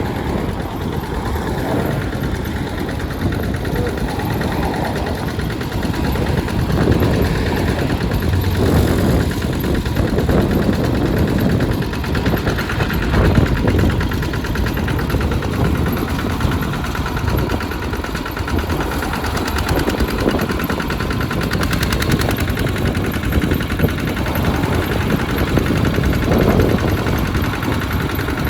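Two-wheel walking tractor's single-cylinder diesel engine running steadily with a fast, even knocking beat.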